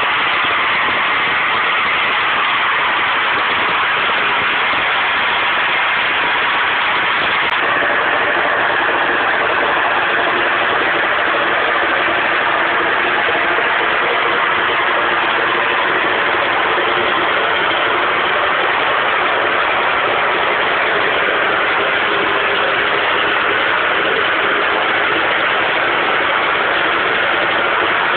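Loud, steady roar of natural gas jetting from an uncontrolled open well blowout, with a faint click and a slight change in tone about seven and a half seconds in.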